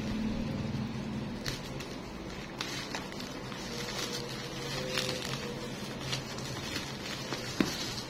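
Thin plastic bag and bubble wrap crinkling and rustling as they are pulled open by hand, with many scattered sharp crackles.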